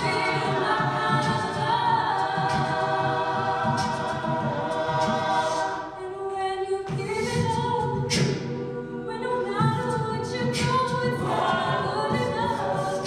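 A cappella group singing a pop ballad: a female soloist on a microphone over sustained chords from the backing singers, with a brief dip in loudness about halfway through.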